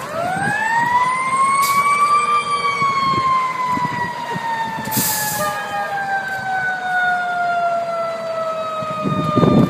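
Fire engine siren winding up over about two seconds, then slowly winding down for the rest of the time as the engine drives past. A short hiss comes about halfway through.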